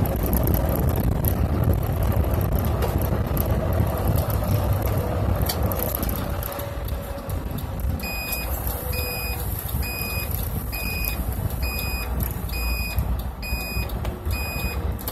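Bus cruising at highway speed, with steady engine and road noise in the cab. From about eight seconds in, a regular electronic beep sounds a little faster than once a second: the turn-signal indicator beeping as the bus changes lanes.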